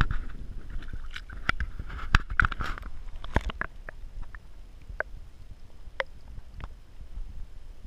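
Camera housing dipping into shallow stream water, splashing and sloshing for the first few seconds. Then muffled underwater clicks and knocks follow, over a low rumble.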